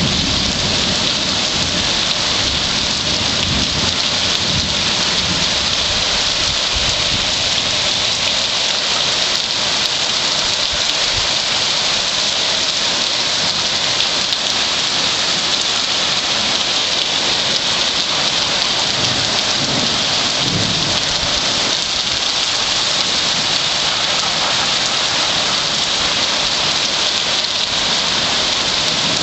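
Torrential rain pouring down in a steady dense hiss, with low rumbles near the start and again about twenty seconds in.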